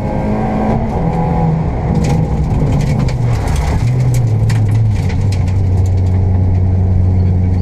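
Škoda Fabia 1.4 rally car's engine heard from inside the cabin. Its pitch falls in several steps as the car eases off, then it runs steady and low for the last few seconds, with scattered clicks and ticks over it.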